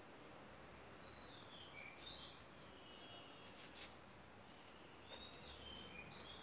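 Faint outdoor ambience with several short, high bird chirps scattered through it and a few soft clicks.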